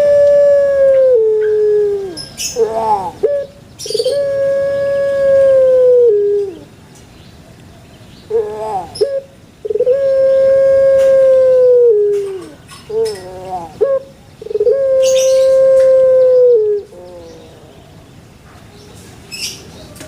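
A dove singing: four long drawn-out coos of about two seconds each, each dropping in pitch near its end, with short rising notes in between.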